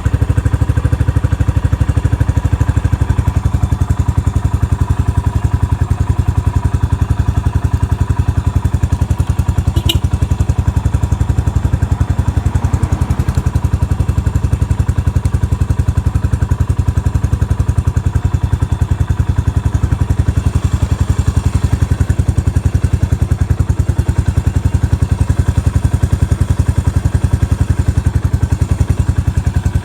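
Yamaha SR400's air-cooled single-cylinder four-stroke engine idling steadily with an even beat. The seller calls it free of abnormal noises.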